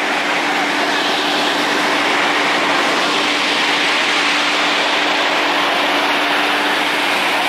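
Fire engine running steadily nearby: a constant hum under a loud, even hiss.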